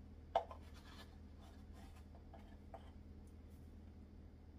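Measuring spoon scooping MSG from a plastic jar and tipping it into a food processor bowl: a light click about half a second in, then soft scraping, over a faint low hum.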